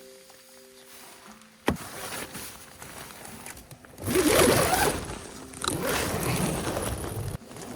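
Faint background music ends with a sharp click about two seconds in. Then comes rasping and rustling from a tent door zipper and nylon fabric as someone climbs in, loudest in a burst about four seconds in and again near the end.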